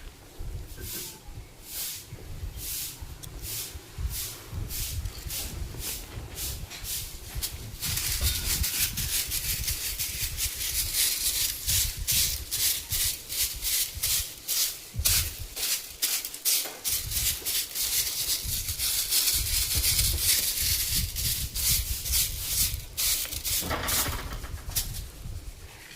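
A stiff brush, likely a broom sweeping the floor, working in quick repeated strokes. The strokes grow faster and louder about eight seconds in and ease off near the end.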